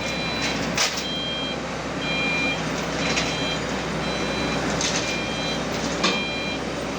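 Travel alarm of an XCMG XR160E rotary drilling rig beeping about once a second, each beep about half a second long, over the steady running of the rig's diesel engine, with a few short noisy bursts.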